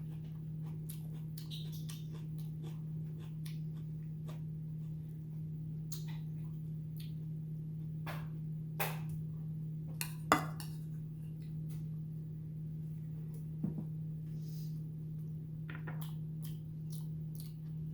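Eating sounds: a spoon clicking and scraping against a bowl and quiet chewing, in scattered short clicks, the loudest about ten seconds in. A steady low hum runs underneath throughout.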